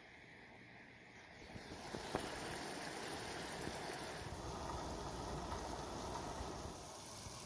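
Chanterelles, red onion and a ling cod fillet frying in a pan on a camp stove, sizzling steadily. The sizzle grows louder about two seconds in.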